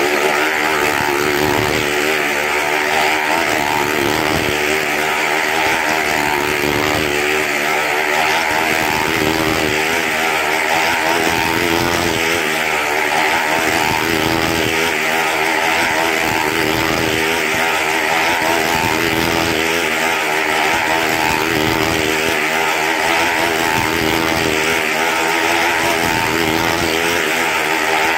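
Motorcycle engine running hard as it circles the wall of a wall-of-death drum, its note wavering up and down continuously.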